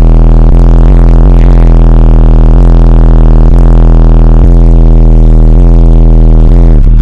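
Competition car audio subwoofers playing one deep, steady bass tone at extreme level, heavily distorted, at a pressure that has cracked the car's windshield; the tone cuts off near the end.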